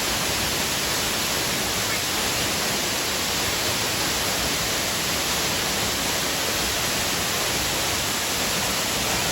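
Waterfall: water pouring and crashing in a steady, even rush that does not change.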